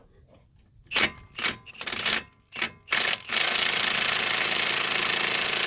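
Cordless Milwaukee impact wrench hammering on a seized suspension bolt: a few short trigger bursts, then a sustained run of rapid impacts from a little past the halfway point. The fastener is badly stuck, turning but not coming apart.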